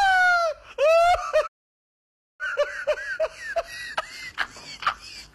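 High-pitched, squeaky voice: a long call that falls in pitch, then a shorter one that rises and falls. After a brief dead gap comes a run of short giggling chirps mixed with sharp clicks.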